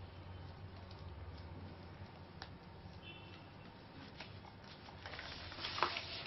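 Hands pressing and smoothing a soft filled dough round on an oiled plastic sheet: faint rustles and light ticks. About five seconds in the plastic sheet crinkles louder as it is handled, with one sharp crackle just before the end.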